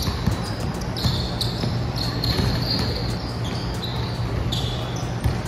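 Basketball game sounds on a hardwood gym court: a ball bouncing on the floor and several short, high sneaker squeaks.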